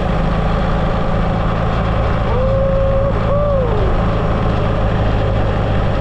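Motorcycle engine running steadily under way, with wind rush over it. About midway there is a brief wavering tone that rises, then falls.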